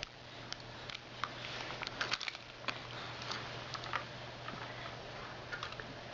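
Irregular light clicks and rattles of dry Cheerios and a plastic toy backhoe as the cereal is scooped and tipped into a toy dump truck, over a faint steady hum.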